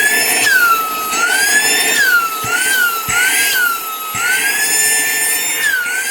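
Cordless handheld car vacuum cleaner running with its vacuum nozzle fitted: a loud high motor whine whose pitch swings up and down several times as the suction load changes.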